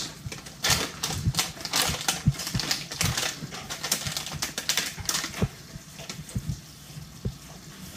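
A plastic sachet crinkling as it is handled and opened, giving dense irregular crackling clicks that thin out after about five seconds, over stir-fry sizzling in a cast iron wok.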